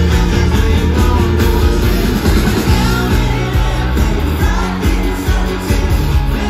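Pop-rock band playing live, a male lead singer over drums, electric guitar and bass guitar, recorded loud from within the crowd.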